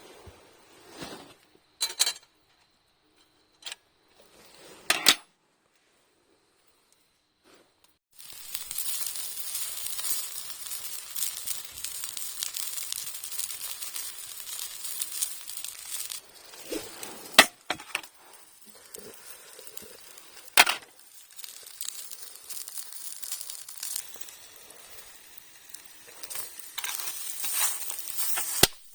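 Food sizzling in a pan over the fire: a steady crackling hiss that starts about eight seconds in, with a few sharp clinks and knocks of cookware before and during it.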